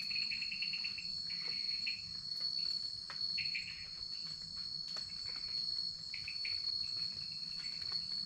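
Jungle insect chorus: crickets chirping in repeated bursts of fast pulses over a steady high-pitched drone, with a few faint clicks.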